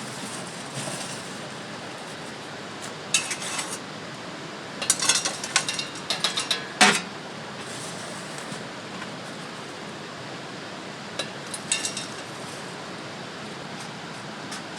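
Light clinks and knocks of hard gear being handled, in three short clusters with the loudest knock about seven seconds in, over a steady hiss.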